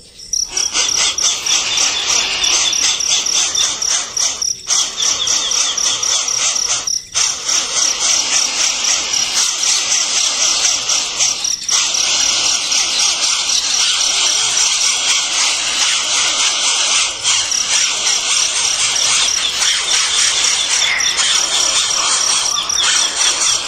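Nestling birds begging, a loud continuous chorus of rapid high-pitched chirps with a few brief breaks.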